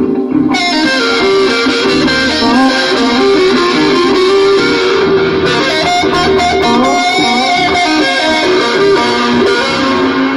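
Six-string fretless electric bass (Ibanez SR506 with Thomastik-Infeld Jazz Flat flatwound strings) played fingerstyle through a Korg AX3000B effects unit. It improvises over its own layers looped on a Boss RC-20XL loop station, several notes sounding at once and some gliding between pitches. A brighter layer comes in about half a second in.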